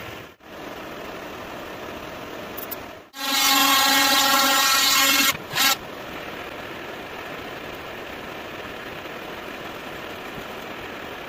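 A power tool motor runs at a steady pitch for about two seconds, starting about three seconds in, then gives one short second burst, over a steady shop hum.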